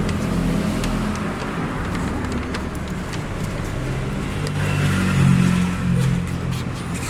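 A motor vehicle engine running, its pitch drifting up and down and swelling about five seconds in, with scattered light clicks.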